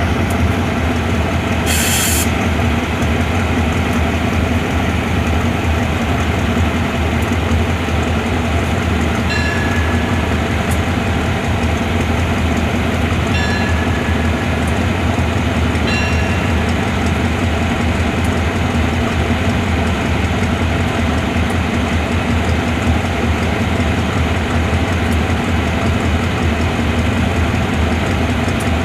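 Diesel-electric locomotive of a Thai passenger train running steadily close by with a deep engine hum. Brief faint high squeaks come three times in the middle.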